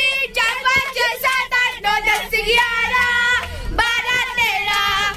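A high voice singing a song unaccompanied, as in a game of antakshari, with long held notes.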